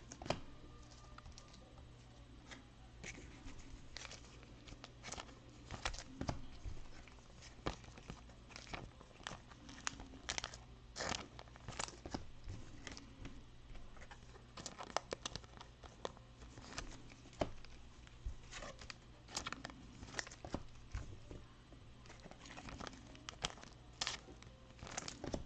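Trading card pack wrapper being torn open and crinkled in the hands: irregular sharp crackles and tearing sounds.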